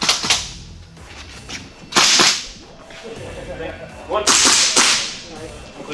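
Gas blowback airsoft rifle firing sharp shots in short strings: a quick pair at the start, a few about two seconds in, and a longer string from about four to five seconds.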